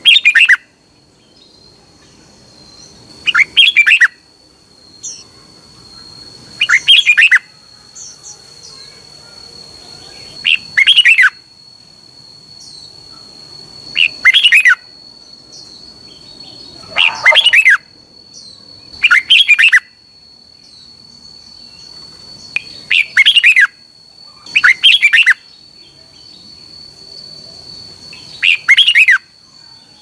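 Red-whiskered bulbul singing short warbled phrases, one every three to four seconds, about ten in all.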